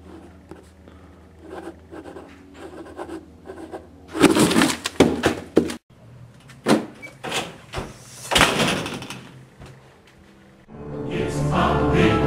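Faint scratching and short clicks as a pen signs a paper form on a cardboard parcel, then loud rustling and a few knocks as the box is handled. Music comes in near the end.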